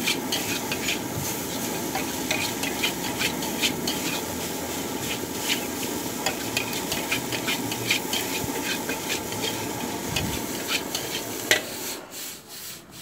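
Metal spatula scraping and clicking against a steel wok as fried rice is stir-fried: a steady rasping scrape with frequent sharp clicks. It drops away near the end as the wok comes off the flame.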